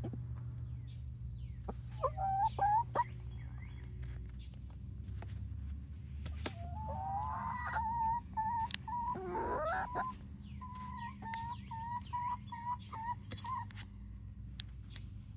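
19-week-old pullets (Barred Rock and Gold Star hens) calling close by. There are a few short clucks about two seconds in, a longer warbling trill around the middle, then a run of short, evenly repeated notes. A few sharp taps are heard among the calls.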